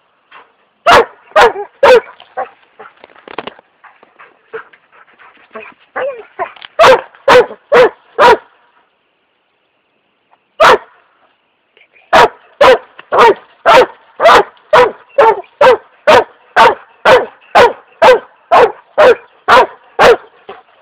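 Weimaraner barking at a cat it has chased up a tree: a few sharp barks with whining between them, then a steady run of about two barks a second through the second half.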